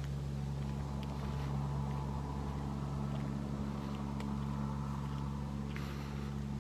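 A steady low mechanical hum made of several held tones, with a few faint clicks over it.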